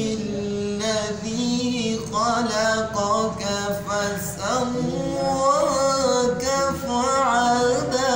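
A man reciting the Quran unaccompanied in a melodic tajweed style: long held notes with ornamented glides, in several phrases with short breaths between them.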